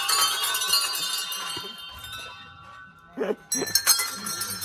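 A row of small brass Hindu temple bells struck one after another, a dense clanging with overlapping ringing tones that die away about two seconds in. A short burst of voice cuts in after three seconds, and the bells ring again near the end.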